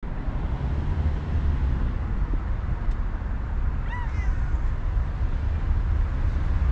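A cat gives one short meow about four seconds in, over a steady low rumble.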